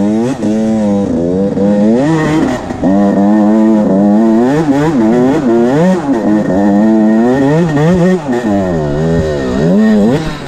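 Motocross bike engine revving up and down over and over as the throttle is worked while riding, its pitch rising and falling every second or so.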